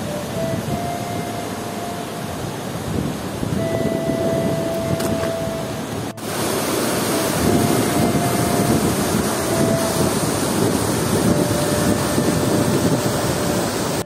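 Rushing white-water mountain river pouring over boulders, a loud steady roar. It breaks off for an instant about six seconds in and comes back louder. A thin whistle-like tone comes and goes over it.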